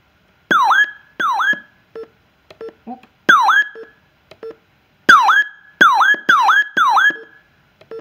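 RadioShack 12-996 weather alert radio giving short beeps as its touchscreen buttons are pressed, with seven loud chirps, each dipping in pitch and sweeping back up, played by the radio while its volume and alert settings are stepped through.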